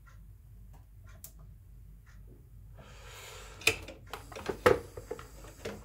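Hands handling the plastic fittings and tubing of a reverse osmosis water filter: a few faint ticks, then a rustle from about three seconds in and several sharp clicks and knocks.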